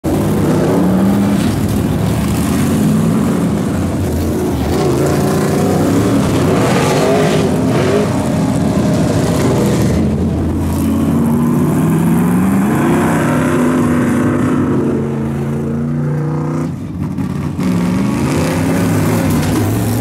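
A pack of dirt late model race cars driving by, their V8 engines revving up and easing off, several engines sounding at once. The loudness dips briefly near the end.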